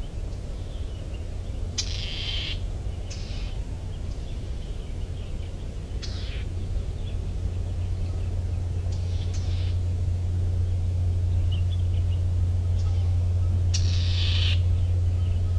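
Birds calling in short calls every few seconds, some falling in pitch, over a steady low rumble that grows louder in the second half.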